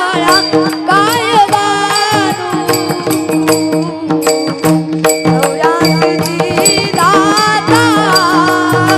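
A Marathi devotional bhajan: a boy's voice sings drawn-out, ornamented, wordless phrases over steady sustained accompanying tones and a regular percussion rhythm.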